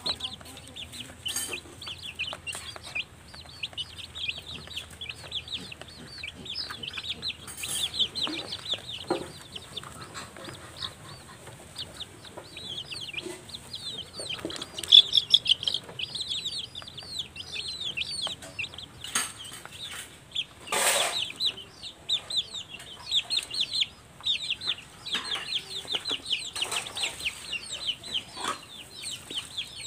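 Young chickens peeping continuously in quick, short chirps. A few sharp knocks are mixed in, the loudest a little past two-thirds of the way through.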